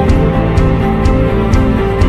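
Instrumental background music: sustained chords over a steady beat of about two beats a second.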